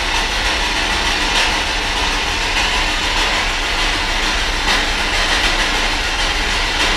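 Spirit Box radio-sweep static: a loud, steady hiss with no voice coming through.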